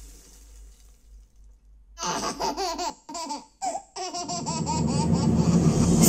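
A baby laughing in bursts in a film soundtrack, played through a Yamaha YAS-109 soundbar in standard surround mode and recorded in the room. From about four seconds in a rushing swell of soundtrack rises and grows louder.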